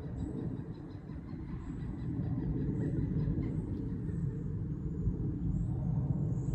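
Steady low rumbling outdoor noise that grows louder about two seconds in, with a few faint high chirps.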